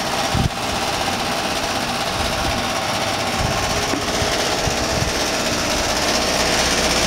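Broan 3-ton heat pump outdoor unit running steadily: its Copeland scroll compressor and condenser fan, with a rattling that the owner puts down to something loose on top of the unit rather than a fault in the heat pump.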